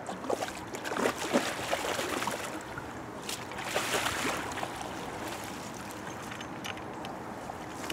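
Hooked carp thrashing at the surface as it is drawn into a landing net: a cluster of irregular splashes over the first four seconds or so, dying down to quieter lapping water.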